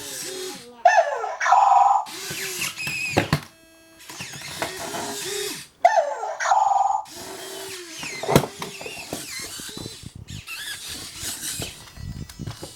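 Toy robot dog's electronic sound effects: pitched chirps and bleeping glides, with one phrase heard twice, over the whirring of its small motors.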